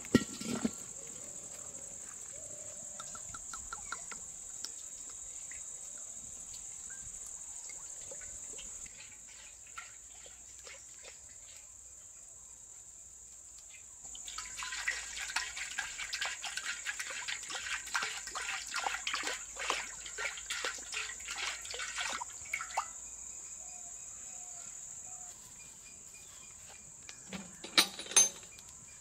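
Steady high-pitched chorus of crickets, with a stretch of dense crackling and popping in the middle from oil heating in a wok over a wood fire, and a couple of sharp knocks near the end.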